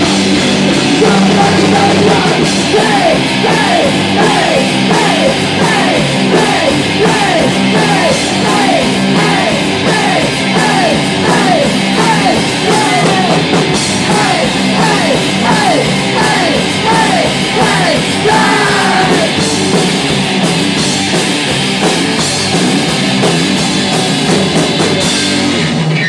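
Live rock band with amplified electric guitars, drum kit and vocals playing loudly without a break, with repeated falling guitar or vocal slides through the middle. The song stops abruptly right at the end.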